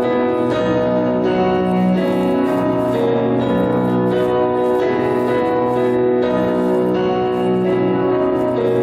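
Piano-voiced keyboard playing an instrumental passage of a slow song, with sustained chords and a melody over a low bass line, no singing.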